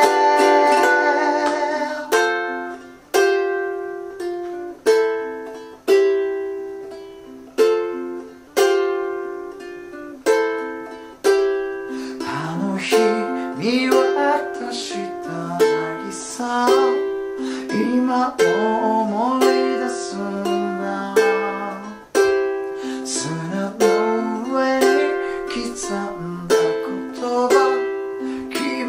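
Ukulele: a strummed chord rings out, then notes are picked about once a second and left to ring. From about twelve seconds in, a man sings the melody over an arpeggiated ukulele accompaniment.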